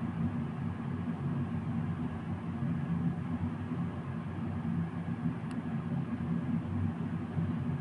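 A steady low rumbling hum that stays even throughout, with no speech.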